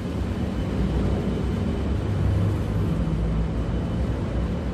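A steady low background rumble, with a faint hum that swells a little in the middle.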